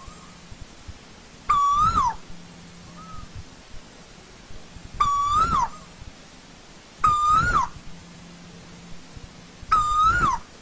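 Asian koel calling: four loud whistled calls, each about half a second long, holding a pitch and then falling away at the end, with fainter short calls between them.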